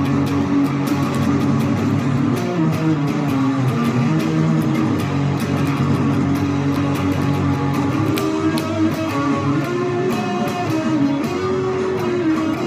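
Telecaster-style electric guitar strummed along with a band recording playing from a TV. A steady drum beat ticks through the music.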